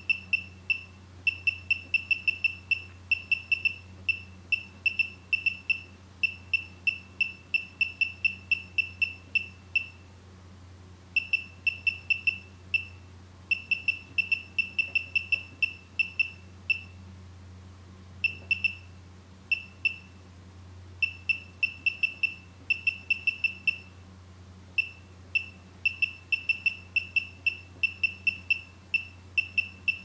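Celluon EPIC laser projection keyboard beeping once for each keystroke it registers, a short high beep per key as someone types. The beeps come in quick runs of several a second with a few brief pauses, over a faint steady low hum.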